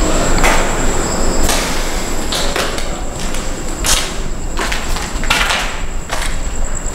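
Footsteps on a gritty, debris-strewn concrete floor, a sharp scuffing step roughly once a second at an uneven pace.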